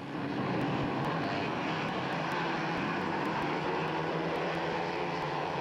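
A pack of small motocross mini bikes racing together, many engines at high revs blending into one loud, steady sound, as the field gets away from the start.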